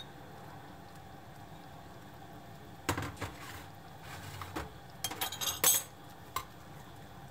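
Spoons clinking and knocking against a nonstick frying pan while a cream sauce is stirred: a few scattered clinks starting about three seconds in, the loudest around five and a half seconds.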